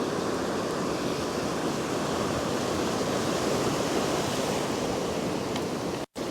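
Steady rush of ocean surf washing onto the beach. It cuts out briefly near the end.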